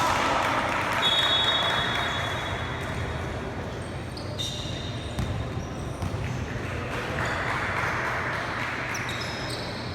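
Basketball game play on an indoor court: brief high sneaker squeaks, the ball bouncing, and the murmur of spectators in the hall, which swells a little about seven seconds in.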